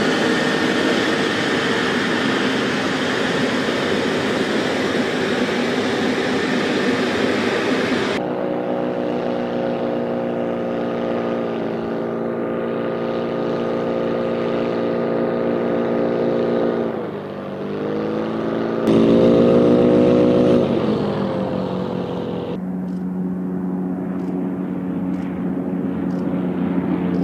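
Propeller-driven military drone engines running on the ground, in several cut-together clips. First a dense, hissy engine noise, then a steady droning engine note that drops and climbs back in pitch about two-thirds of the way through, then a lower steady drone near the end.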